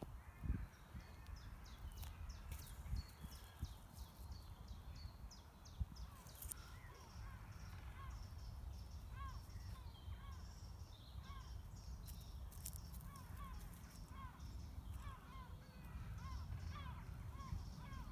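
Wild birds calling. There are many short, high twitters in the first half, then a run of repeated chirps, several a second, from about six seconds in. Underneath is a steady low rumble, with a brief thump near the start.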